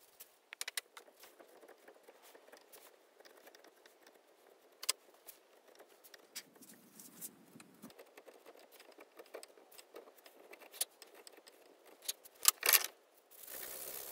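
Scattered small clicks and taps of a knife and tools being handled on a workbench, with a few sharp metallic clicks about twelve and a half seconds in. Near the end, a steady rasp of something rubbing against the knife's handle end starts while the blade is clamped in a vise.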